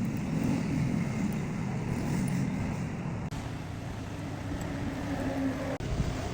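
Steady low rumble of background road traffic, which changes character abruptly about three seconds and again about six seconds in.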